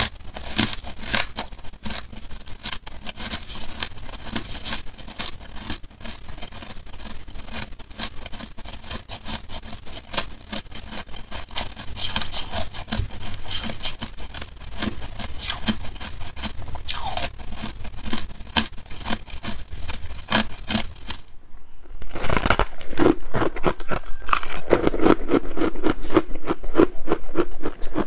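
Close-miked crunching of soft frosty ice being chewed, a dense rapid crackle. After a brief break about three-quarters of the way in, louder crunching of shaved ice follows.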